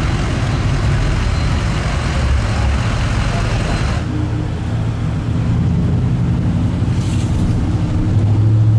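Road traffic of big pickup trucks rolling by on a street. About halfway through it changes to the steady low hum of engine and tyres heard from inside a moving truck's cab.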